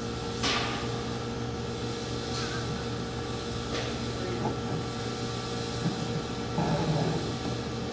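A steady mechanical hum with several fixed tones, broken by a few short knocks or scrapes and a brief rustle near the end.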